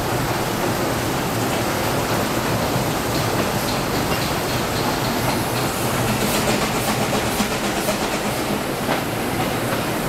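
Narrow-gauge steam train running through a corrugated-metal tunnel: a steady rumble of wheels on rail with scattered light clicks.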